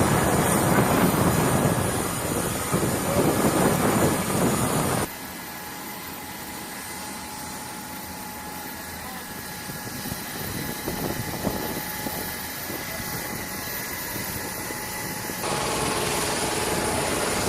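Four turbofan jet engines of a Lockheed C-5M Super Galaxy running, a steady rushing sound with a thin high whine. The sound drops abruptly to a quieter level about five seconds in and jumps louder again near the end.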